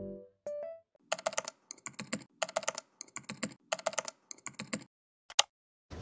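A piano note fades about a second in. Then come six short bursts of rapid clicking, spaced about half a second to a second apart, and a single sharp click near the end.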